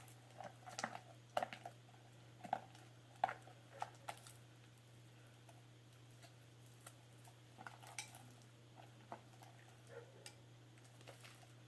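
Faint, scattered clicks, taps and small squishes of sticky homemade glue slime being mixed in a container, the louder taps falling in the first half.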